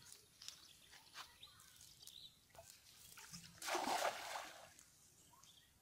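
A cast net landing on the surface of a pond, a brief loud splash about three and a half seconds in that lasts about a second. Before it, faint sloshing and dripping of water.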